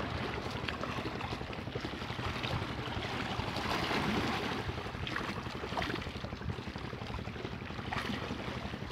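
Steady low hum of a boat's motor under the rush of wind on the microphone and water around the hull.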